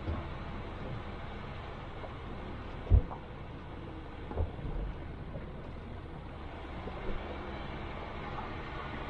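4x4 vehicle driving on a rough off-road track: a steady low rumble of engine and tyres, broken by three short knocks, the loudest about three seconds in.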